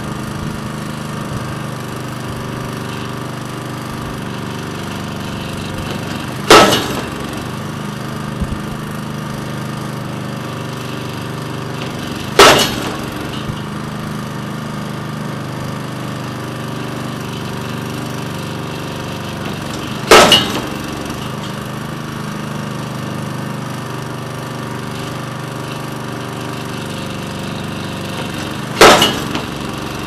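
Pile-driver hammer striking a wooden piling four times, one blow every six to eight seconds, each a sharp loud bang. Between the blows the engine powering the rig runs steadily.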